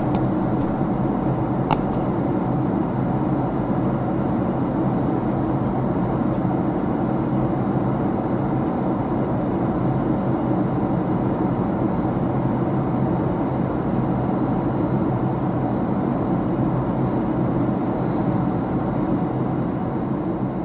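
Steady cabin noise of a Boeing 767-300ER airliner in flight: the even rush of airflow and engine hum heard from a window seat. A few sharp mouse-click sound effects come right at the start and just under two seconds in.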